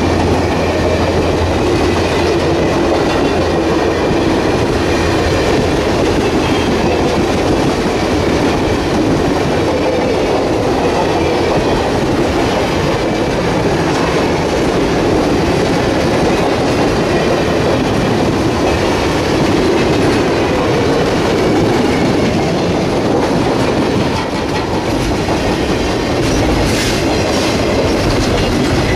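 Cars of a long passenger and flatcar train rolling past at speed close by: a steady, loud noise of steel wheels running on the rails, unbroken throughout.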